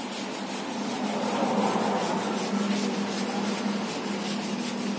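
Steady rubbing and scraping as the headliner fabric and trim above the windshield of a 1984 Toyota Corolla GL are pulled and worked loose by hand, over a steady low hum. The rubbing is a little louder about one to two seconds in.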